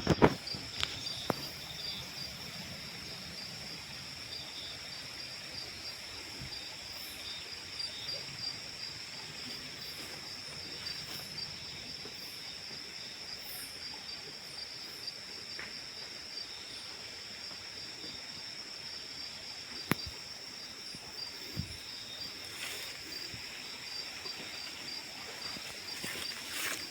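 Steady, high-pitched insect chorus trilling without a break. A few sharp clicks stand out over it, the loudest right at the start and about twenty seconds in.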